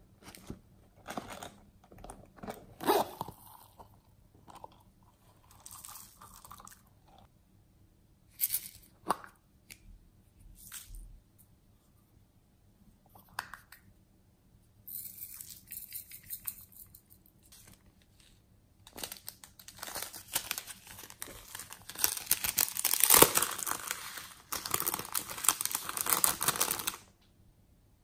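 Hands handling small plastic toys and containers of slime add-ins: scattered taps and clicks at first, then long stretches of dense crackling and rustling in the second half, loudest a little past the middle of that stretch.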